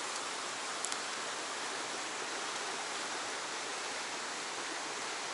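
Fast stream current rushing steadily over rock, with two faint ticks about a second in.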